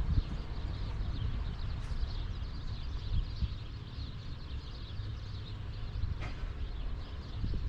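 Small birds chirping repeatedly over a steady low rumble of background noise, with a couple of faint clicks.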